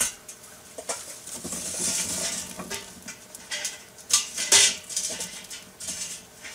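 Lit charcoal briquettes poured from a metal chimney starter into a ceramic Big Green Egg: a rushing clatter of tumbling coals, then several sharp metallic clanks, the loudest about four and a half seconds in.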